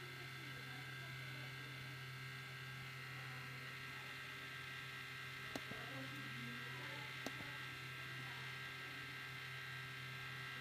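MacBook Pro giving off a steady electrical buzz with several high, whining tones layered over a low hum: an abnormal noise that comes even when the computer is doing nothing processor-intensive. Two faint clicks sound near the middle.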